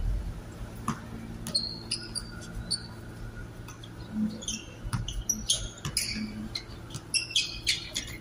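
Basketball shoes squeaking on the court surface as players cut and stop, with short high squeaks coming thick in the second half and a few sharp knocks of the ball and feet.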